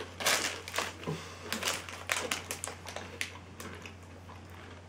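Shiny plastic snack wrapper crinkling in quick, irregular crackles. They come thick for the first three seconds or so, then thin out.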